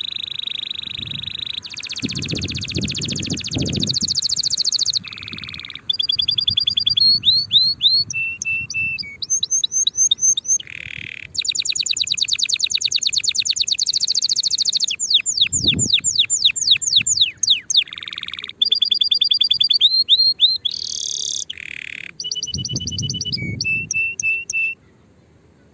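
Domestic canary singing a long, varied song of fast trills and rolls of rapidly repeated notes, mixed with falling sweeping notes, broken only by brief pauses. The song stops about a second before the end.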